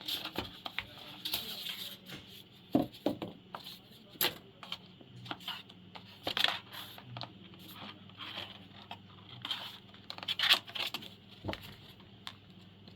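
Irregular rustling, crinkling and clicking as a keyboard and its packaging are handled, with a few sharper knocks scattered through.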